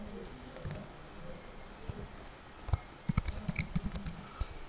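Computer keyboard typing and mouse clicks: a few scattered clicks, then a quick run of about eight keystrokes about three seconds in.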